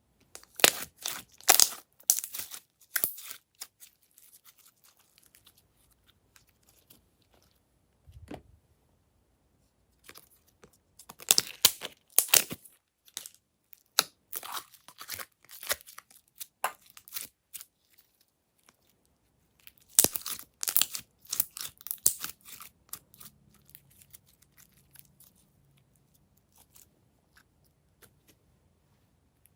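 Glossy slime being squeezed and stretched by hand, giving off clusters of sticky crackling pops and clicks three times, with quiet pauses between.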